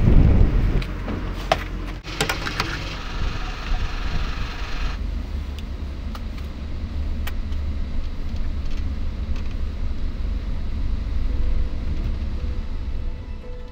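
A few sharp clicks and knocks about two seconds in, then the steady low rumble of a Volkswagen Transporter campervan's engine running.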